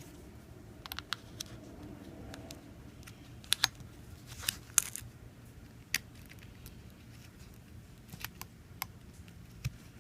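Irregular light clicks and taps of small objects being handled on a work surface, the sharpest few clustered around the middle.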